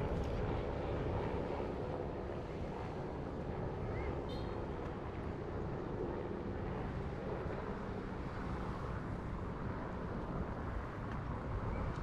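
Steady low rumble of vehicle traffic mixed with wind on the microphone, with a brief high squeak about four seconds in.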